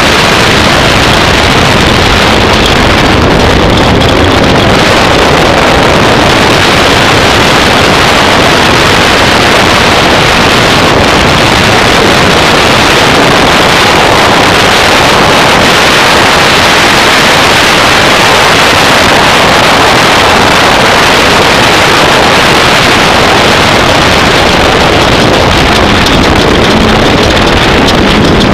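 Off-road race vehicle running at speed: a loud, steady roar of engine and wind noise that overloads the microphone.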